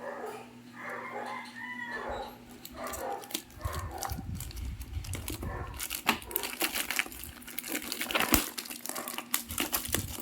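Plastic parcel packaging being crinkled and torn open by hand, with dense crackling from about three and a half seconds in.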